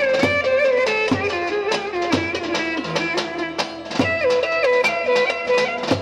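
Turkish Roman havası dance music: a fast, ornamented lead melody over drums, with a strong beat about once a second and quicker hits between.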